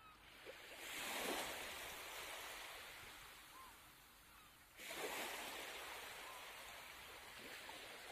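Small waves washing up onto a sandy beach, twice: about a second in and again just before five seconds, each swelling quickly and then fading slowly.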